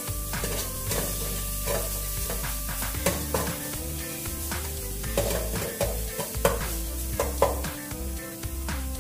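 Metal ladle stirring and scraping yellow kroeung herb paste as it sizzles in oil in a stainless steel pot, with sharp clicks of the ladle against the pot, the loudest a little after the middle. Soft background music with held notes runs underneath.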